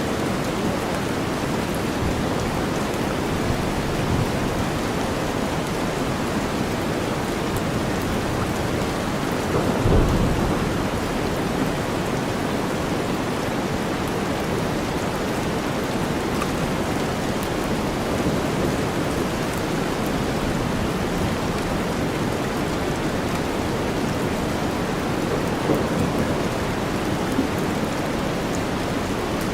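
Steady heavy rain blended with deep white noise, with a low rumble of thunder swelling about ten seconds in.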